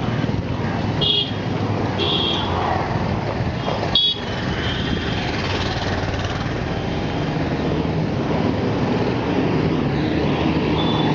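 Road traffic, vehicle engines running, with several short, high horn beeps breaking through.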